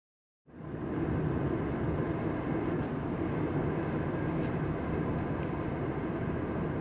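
Steady travel noise of a moving vehicle, dense and constant, fading in about half a second in after a moment of silence.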